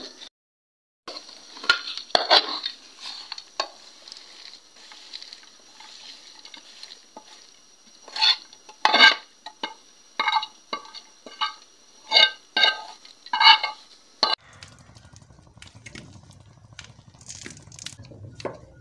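Metal spoon stirring and scraping peanuts in a steel pan as they are lightly fried. Bright ringing clinks of spoon on pan come in a quick run about eight to fourteen seconds in. After that there is a quieter low hum with faint crackles.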